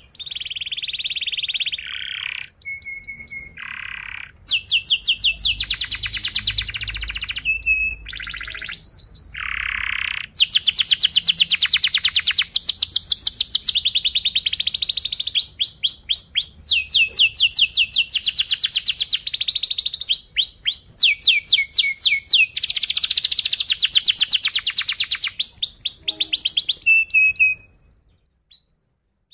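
Domestic canary singing a long, continuous song of fast rolling trills and buzzy phrases, breaking off near the end.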